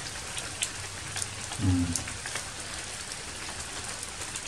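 Steady patter of rain on foliage with scattered drip ticks. About a second and a half in comes a brief low voice sound.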